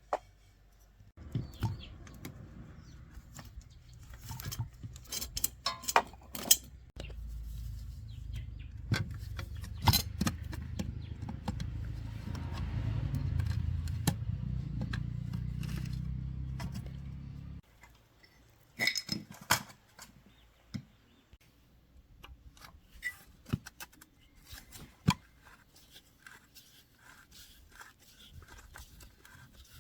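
An electric motor hums steadily for about sixteen seconds, growing louder partway through and then cutting off abruptly, among metal tools and parts clinking and tapping. After it stops, only scattered clinks and taps remain.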